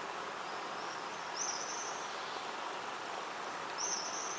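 Steady outdoor background hiss from insects and open-air ambience, with short high-pitched chirping calls, two clear ones about a second and a half in and near the end.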